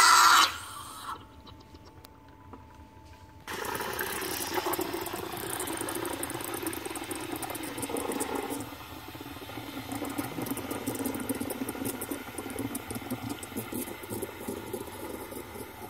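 Espresso machine steam wand frothing milk in a stainless steel pitcher. A loud steam hiss cuts off about half a second in; after a near-quiet gap of about three seconds, the wand runs steadily with its tip sunk in the milk, a quieter, rougher hiss.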